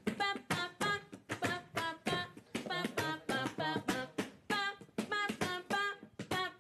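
A person's voice making a rhythmic vocal beat: short, pitched sung syllables repeated evenly, about two or three a second, as a backing beat for a freestyle rap.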